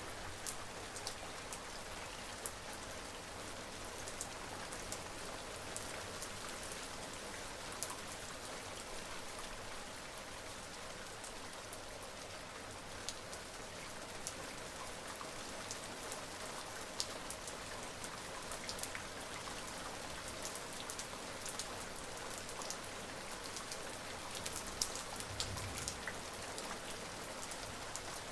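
Steady rain, an even hiss with many separate drops striking a hard surface as sharp ticks. A brief low rumble near the end.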